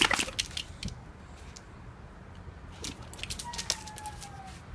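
Two big dogs, a pit bull and a Tosa, scuffling in play, with their claws clicking and scraping on concrete; the scuffle is loudest at the very start and then settles into scattered taps. A faint falling whine is heard near the end.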